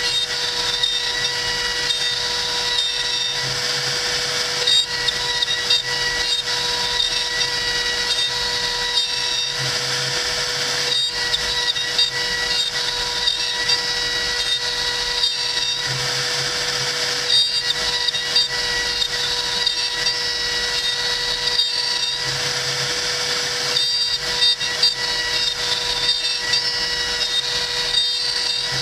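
CNC router spindle running with a steady high whine while its bit cuts into a block of hardwood, the cutting noise shifting as the tool moves along its path.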